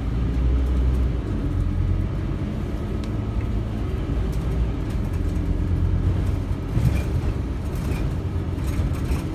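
Scania OmniCity bus's diesel engine and drivetrain running while the bus moves, heard from inside the passenger saloon as a steady low hum. A few short clicks and knocks from the interior come through, one about three seconds in and a couple near the end.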